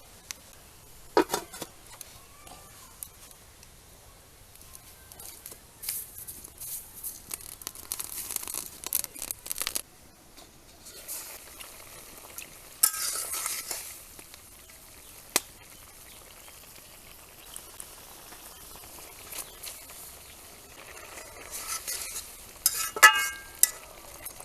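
A spatula stirring and scraping a cooking pan of small fish, in bursts of scraping and clinking with light sizzling between.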